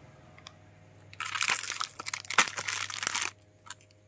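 Plastic biscuit packet crinkling as a hand picks it up and handles it, for about two seconds starting a second in, with a few faint ticks near the end.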